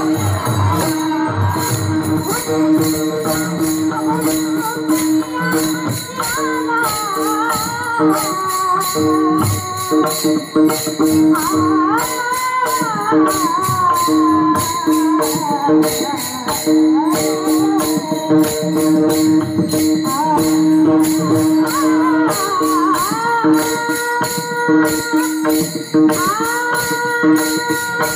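Devotional singing of a Bhairavi by a woman's voice, with a gliding, ornamented melody over a steady drone. A chorus of small hand cymbals (taal) is struck in a steady rhythm.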